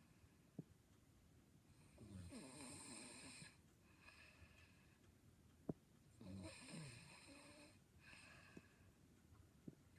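A sleeping person snoring faintly: two long snoring breaths about four seconds apart, the first about two seconds in, with a weaker breath after the second. A brief sharp click falls between them.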